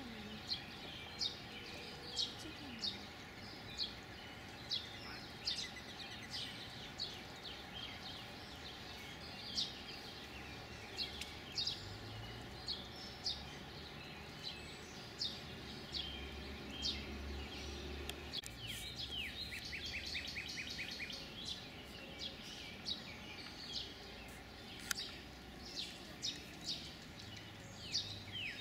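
Mallard ducklings peeping: a steady run of short, high, downward-slurred peeps, one or two a second. Around twenty seconds in and again at the end, a quick, evenly spaced chirping trill joins them, over a faint steady hum.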